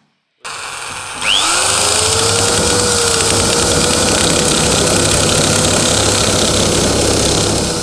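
DongCheng DJJ32 electric sheet-metal shear starting up with a rising whine about a second in, then running steady while its blades cut through iron sheet. Near the end the motor's pitch begins to fall as it winds down.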